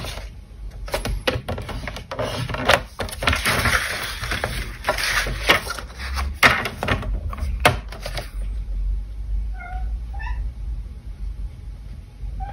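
White cardstock being slid, pressed and scored along a scoring guide, with scraping, rustling and sharp clicks. Around ten seconds in a cat meows twice in short calls.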